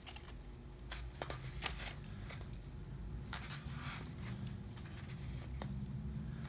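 Pages of a paperback book being leafed through: soft paper rustles and scattered small clicks over a low, steady hum.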